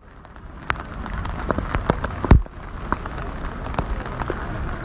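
Rain falling: a steady hiss with many sharp raindrop taps, and one louder hit a little over two seconds in.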